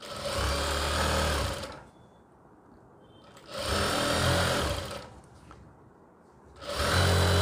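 JACK industrial single-needle sewing machine stitching gold lace onto a gown hem in three short runs of about a second and a half each, stopping between runs while the lace is guided.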